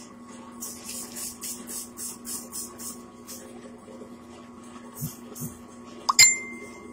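Lapidary bull wheel's motor running with a steady low hum, under a quick run of scratchy rubbing strokes, about three a second, in the first half. Later come two soft thumps and a sharp click near the end.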